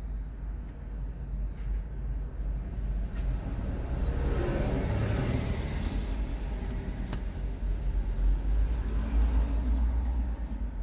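Steady low rumble of road traffic, with a double-decker bus passing close by, swelling and fading about four to six seconds in.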